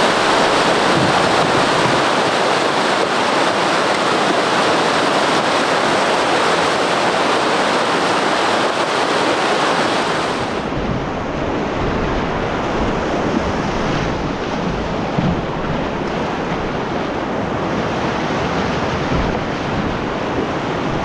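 Whitewater river rapids rushing steadily. About ten seconds in the sound turns closer and lower, with water churning right around the canoe and wind buffeting the microphone.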